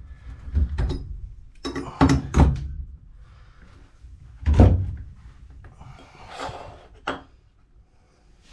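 A few separate thuds and knocks of hard objects being handled, the loudest about four and a half seconds in, followed by a soft rustle and a sharp click near the end.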